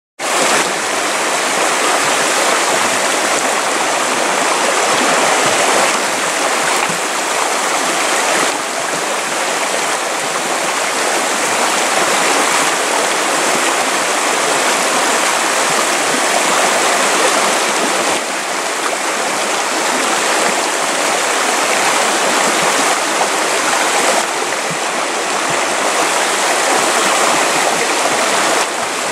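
Rocky stream rushing and splashing over stones: a steady, loud wash of water.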